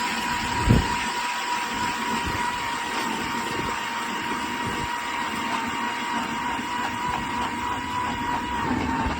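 Small gasoline engine running steadily at high speed with a constant whine, and a single thump under a second in.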